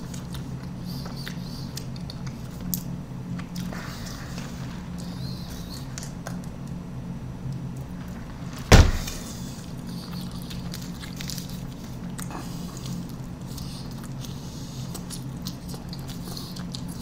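Faint eating sounds at a table, with a sip through a straw, over a steady low hum. One sharp knock comes about nine seconds in.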